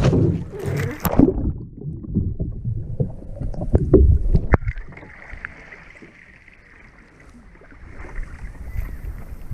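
Water splashing and sloshing around a kayak, with scattered knocks. About halfway through there is a sharp click, and after it the sound turns quieter and muffled.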